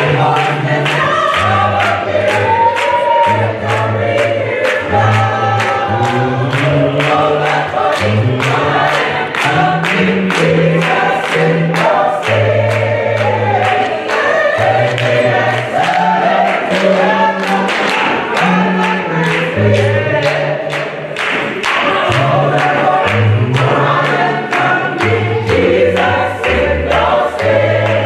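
Gospel choir singing with a band behind it: a moving bass line and a steady drum beat.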